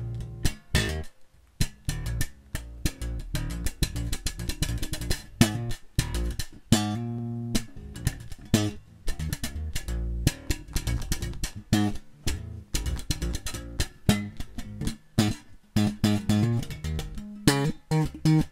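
Harley Benton PB Shorty short-scale electric bass with a passive precision pickup, played clean and unaccompanied, plugged straight into a mixer: a busy run of plucked notes with sharp attacks, a few notes left to ring briefly.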